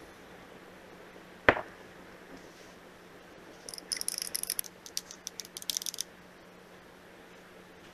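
Small wire whisk stirring warm milk in a drinking glass: a quick, irregular run of light, high-pitched metal-on-glass ticks and scrapes lasting about two seconds. It comes after a single sharp tap about a second and a half in.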